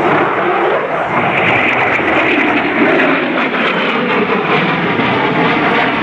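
F-22 Raptor's twin Pratt & Whitney F119 turbofans, loud and steady as the fighter flies past low. A higher hiss comes in about a second in and then slowly sinks in pitch as it goes by.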